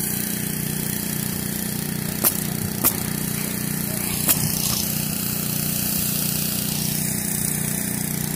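Pneumatic roofing nailer firing three sharp shots, two close together a little over two seconds in and one more about four seconds in, over a small engine running steadily.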